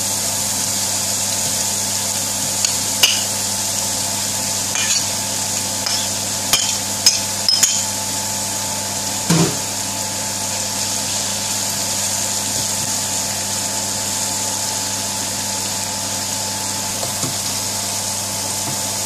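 Hot vegetable oil sizzling steadily in a frying pan as chopped onions are tipped in over garlic, ginger and whole spices. A few sharp knocks and clinks against the pan come in the first half.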